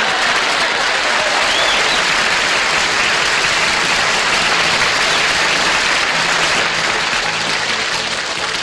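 Studio audience applauding after a comedy punchline, easing off slightly near the end.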